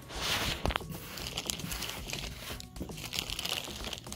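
Crinkling, rustling handling noise with a few small knocks, as a ceiling tile and garbage bin are moved into position.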